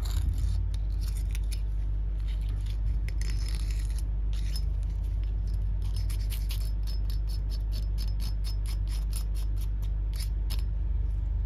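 Razor blade scraping gasket residue off the metal mating face of a Sherwood M71 seawater pump body: many short, rasping scrape strokes, quicker and more regular (about four or five a second) in the second half, over a steady low hum.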